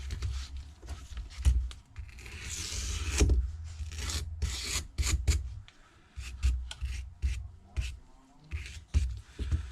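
A small metal brush scrubbing the edges of a phone's frame in short, irregular scraping strokes, cleaning the frame for new adhesive tape.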